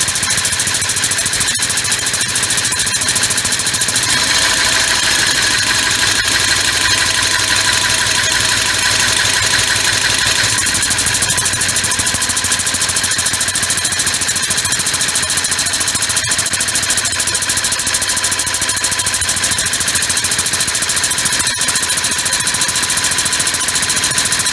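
Homemade three-cylinder six-stroke compressed-air engine running fast and steadily on 125 psi shop air. Its note changes about 4 seconds in and again about 10 seconds in.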